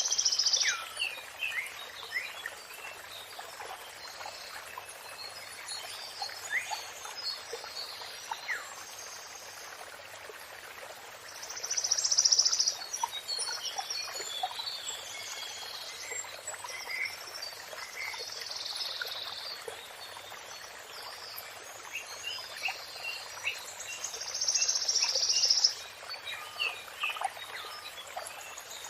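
Songbirds chirping and singing over a steady rush of running water. Twice a louder burst of high song stands out, about twelve seconds in and again near the end.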